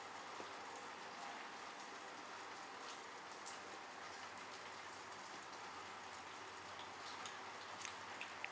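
Light rain falling: a steady soft hiss with scattered ticks of individual drops, more of them near the end.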